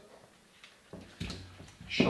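Quiet kitchen handling sounds: a couple of soft knocks and rustling from about a second in, as leeks are laid down on a wooden chopping board and other vegetables are picked up.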